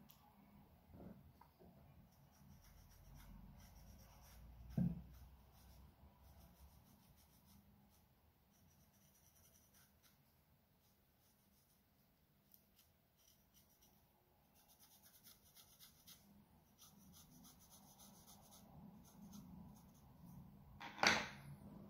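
Pencil scratching faintly on freshly carved wood in short drawing strokes, with a single knock about five seconds in and a louder knock near the end.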